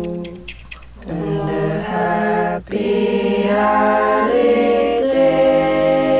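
Several voices singing in close harmony, a cappella, holding long chords that shift every second or so to a final sustained chord.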